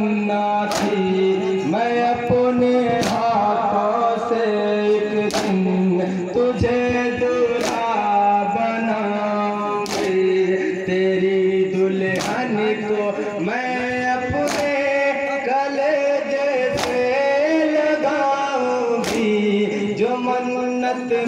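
A devotional lament song with a male voice singing over a held keyboard or harmonium drone, marked by a sharp beat roughly every two seconds.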